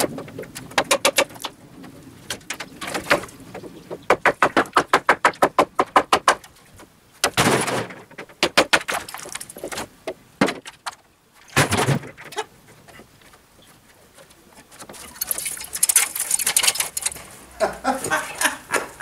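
Wooden roof battens being knocked and pried loose from the rafters of an old shed with a hammer and pry bar: trains of fast rattling knocks, a loud crash about seven seconds in and a heavy thud about twelve seconds in as a batten comes away and drops.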